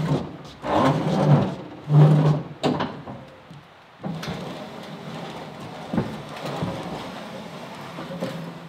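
Heavy butcher-block table sliding down wooden plank ramps off a pickup bed, its metal frame scraping and knocking on the boards. The first few seconds hold loud irregular knocks and scrapes, then a steadier scraping as it slides down.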